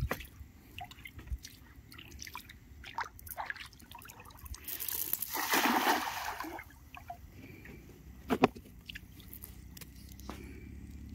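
A cast net lands in shallow river water about five seconds in with a splash lasting about two seconds, among small rustles and clicks. A single sharp knock follows near the end.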